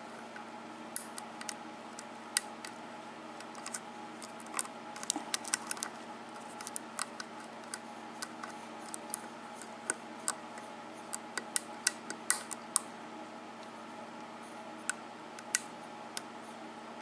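Small, irregular metallic clicks and ticks of a lock pick and tension wrench working the pins of a Schlage 5-pin KIK lock with a sidebar, setting pins one by one to line them up for the sidebar. The clicks come thickest in the middle and thin out near the end, over a steady low hum.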